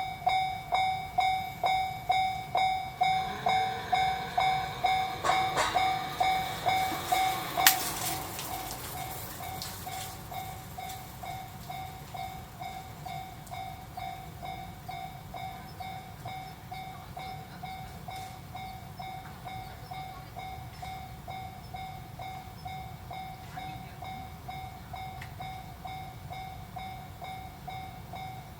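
Japanese level-crossing warning bell ringing 'kan-kan' at a steady two to three strikes a second, while a train runs past with rail clicks and a sharp clack. From about eight seconds in the bell carries on more faintly.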